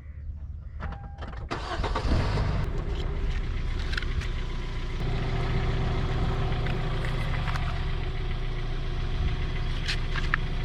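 Car engine starting about two seconds in, then idling steadily; the idle note fills out slightly about five seconds in.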